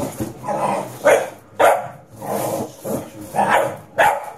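Staffordshire bull terrier barking over and over, short loud barks coming about every half second, with one longer drawn-out bark midway.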